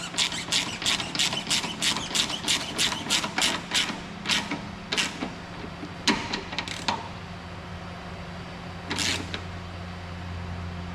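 Hand ratchet tightening the bolt on an exhaust tailpipe hanger: quick back-and-forth strokes of clicking for about five seconds, then a few single clicks.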